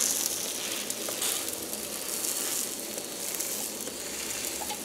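Hot fat sizzling steadily under a stuffed mooli paratha frying on a flat tawa griddle, an even hiss with a few faint ticks.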